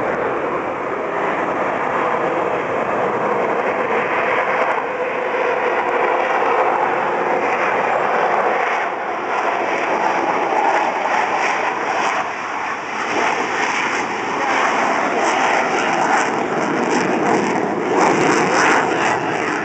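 F-15 Eagle fighter jet taking off, its twin Pratt & Whitney F100 turbofans giving a loud, steady jet roar at takeoff power that grows louder and rougher near the end.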